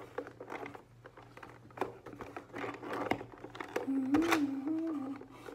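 Scissors snipping the thin plastic ties that hold a toy shark in its cardboard box, with clicks and rustling from the packaging. A short hummed voice about four seconds in.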